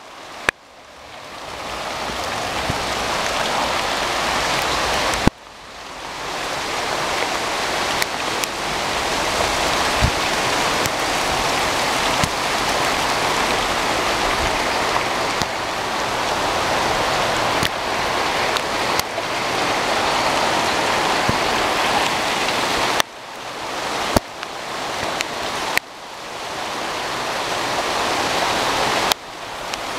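Hail falling heavily on garden trees and shrubs: a dense, steady hiss of stones on leaves, broken off abruptly several times.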